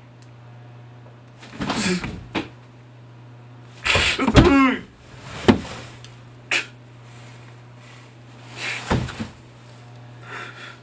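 A man groaning and breathing hard in distress, with a loud falling groan about four seconds in and short sharp breaths after it, over a steady low hum.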